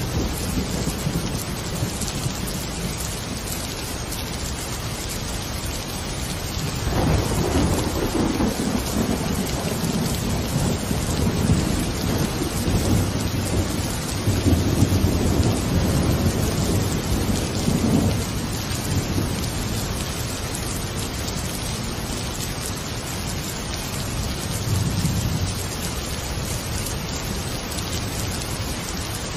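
Steady rain with a long roll of thunder that breaks in about seven seconds in, rumbles for about ten seconds and dies away, then a fainter rumble later.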